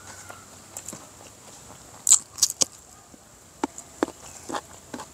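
Crunchy chewing of crispy fried small fish, close to the microphone. A cluster of sharp crackles comes about two seconds in, then softer scattered crunches.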